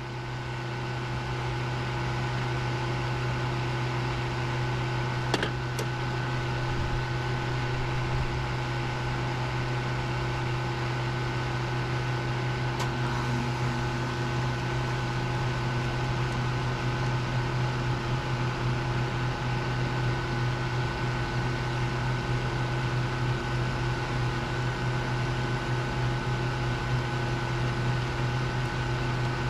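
Steady mechanical hum of a running electric motor, such as pool equipment or an air-conditioning unit, at an even level throughout, with a couple of faint clicks about five seconds in and another near the middle.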